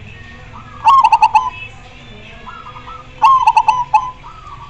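Zebra dove (perkutut) song: two loud phrases of quick staccato cooing notes, about two and a half seconds apart. Fainter coos from other doves answer in between.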